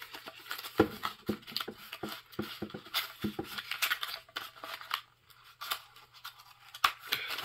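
Plastic packaging crinkling and rustling, with irregular clicks and knocks of hard plastic parts, as a vacuum cleaner accessory is unwrapped and handled.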